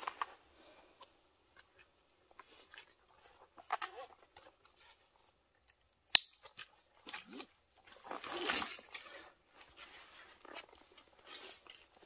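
Intermittent rustling and clicking of hiking gear being handled, with one sharp click about six seconds in.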